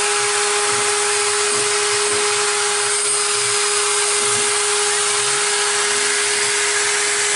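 Stepcraft CNC router's spindle running steadily while cutting: a constant pitched whine with one overtone over a wide hiss, with no vacuum running.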